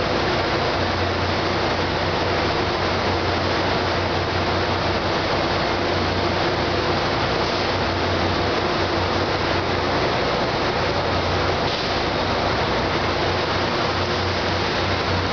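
NJ Transit locomotive standing at the platform and idling: a steady low mechanical hum under an even rushing noise.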